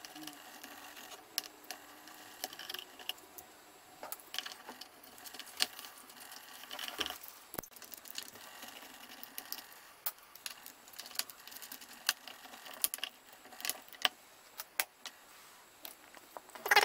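Irregular small metallic clicks and taps of a screwdriver, screws and a metal cover plate being worked loose and handled on a survey meter's metal case, with one firmer knock about halfway through.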